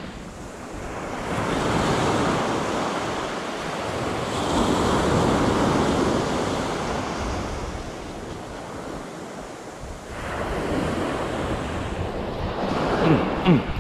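Small surf breaking and washing up a sand beach, the rush of water swelling and fading with each wave. A short burst of louder noise comes near the end.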